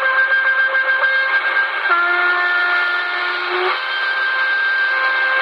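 C. Crane CC Skywave portable radio receiving a shortwave broadcast on 9265 kHz, playing slow held musical notes over a steady static hiss, with the thin, narrow sound of AM shortwave through a small speaker. The note drops to a lower pitch about two seconds in and returns to the first pitch just before four seconds.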